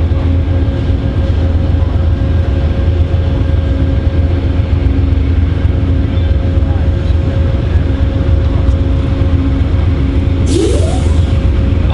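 Amtrak GE Genesis locomotive's diesel engine idling with a steady low drone and a held hum. About ten seconds in, a sudden hiss starts, with a short rising tone.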